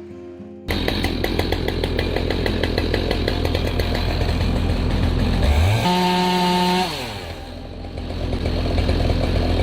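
Chainsaw running, cutting in abruptly about a second in. Near the middle its pitch rises to a steady high whine, then falls away before the saw builds up again.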